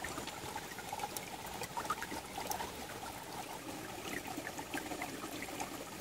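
A small mountain stream trickling over rocks, a quiet, steady burble of running water.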